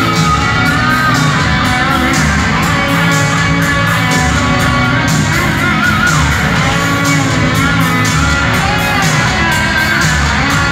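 Rock band played live and loud: distorted electric guitars over drums and bass, with a high lead line of bent, wavering notes. The drums keep a steady beat.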